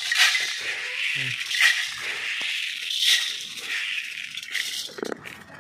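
Dry grain poured out of a plastic tub and stirred through by hand: a rattling hiss that swells three times, then dies away after about five seconds.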